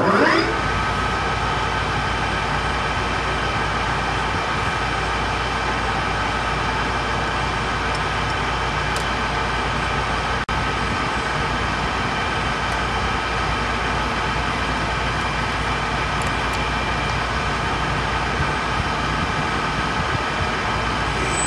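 Metal lathe spindle spinning up with a rising whine at the start, then running at steady speed with a constant whine and hum while the end of the bar is center-drilled and drilled. The sound drops out very briefly about halfway through.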